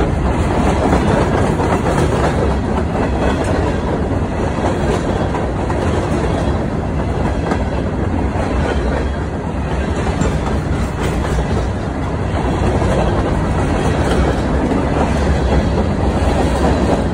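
Empty open-top hopper cars of a CSX freight train rolling past close by, their steel wheels running on the rails with a steady, loud noise.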